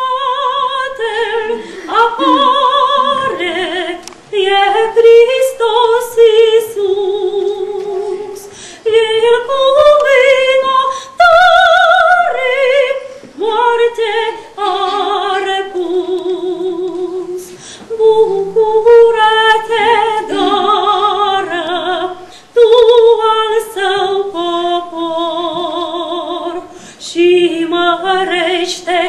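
Women's choir singing a hymn, with held notes and short breaks between phrases.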